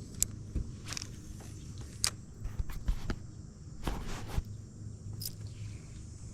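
Steady high-pitched insect chirring with a low hum beneath, broken by several short knocks and rustles, the longest about four seconds in.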